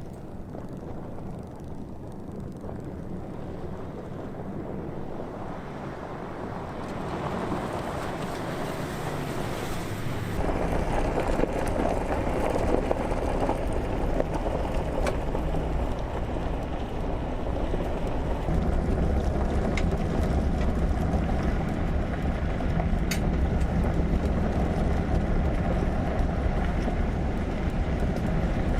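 A vehicle on the move: steady road and wind noise that builds gradually, then gets noticeably louder and deeper about ten seconds in and holds steady.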